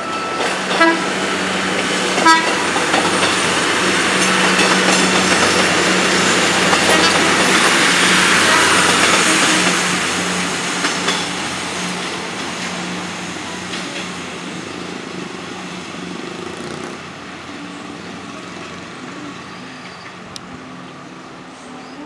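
Philippine National Railways diesel multiple-unit train passing close by: wheels rumbling on the rails over a steady diesel engine drone, growing louder to a peak about eight to ten seconds in, then fading as it moves away. Two short sharp sounds stand out about one and two seconds in.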